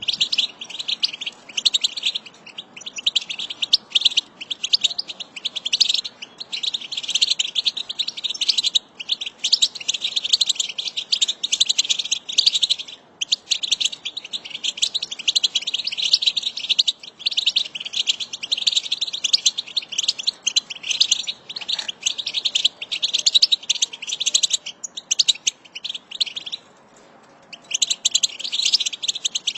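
A flock of European goldfinches twittering: a dense, continuous chatter of rapid high chirps, broken by a short lull twice.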